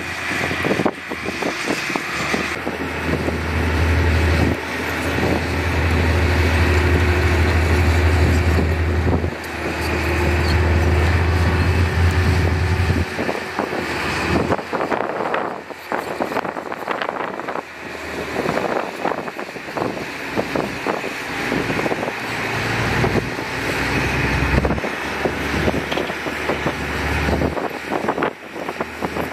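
A motor vehicle running, with a deep low rumble that swells and fades every few seconds over a steady rushing noise.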